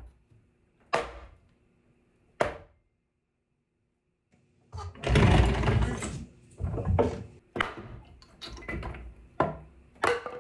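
A mallet striking a plywood cabinet stand to knock its parts apart. There are two sharp knocks, a short pause, a louder, longer clatter about halfway through, and then a quick string of separate knocks.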